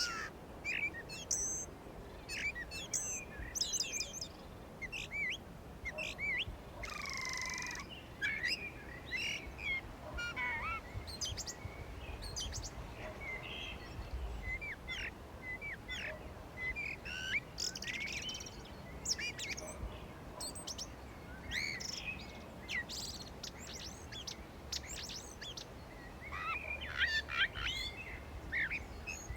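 Spring birdsong: several birds chirping and singing, many short calls and quick whistled glides overlapping, with one longer falling call about seven seconds in, over a faint low background rumble.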